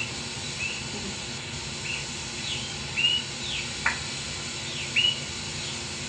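Recording of nocturnal migrating songbirds' flight calls, played back: a series of short, high chirps, about one every half second to a second, over a steady recorder hiss.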